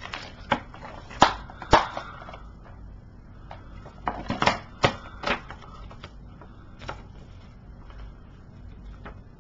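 A plastic DVD case and disc being handled: scattered sharp clicks and taps, clustered in the first two seconds and again around the middle, then only a few more.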